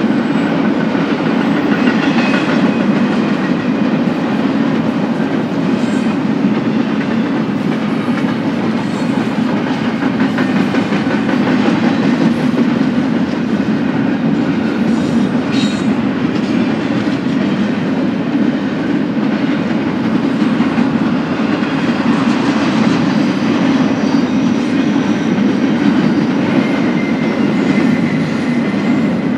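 BNSF double-stack container freight train rolling past, a steady loud rumble of cars and wheels on the rails.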